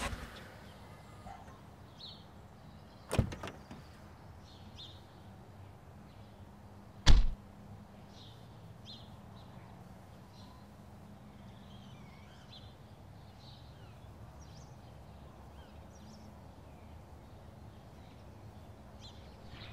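Sedan's car door unlatching with a sharp click about three seconds in, then slammed shut with a heavy thud about four seconds later, the loudest sound. Faint bird chirps over a steady outdoor background.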